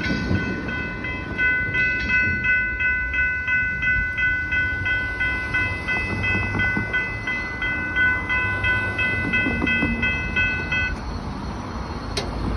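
Railroad grade-crossing warning bell ringing at about two strokes a second over the low rumble of a passing freight train; the bell stops a little before the end.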